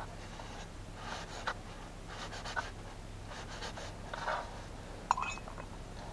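Knife cutting bait meat on a wooden board, a series of soft irregular scrapes and taps, over a faint steady low hum.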